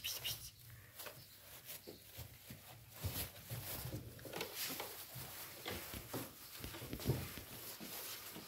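Five-week-old golden retriever puppies moving about in shredded-paper bedding: scattered rustles, scratches and light knocks.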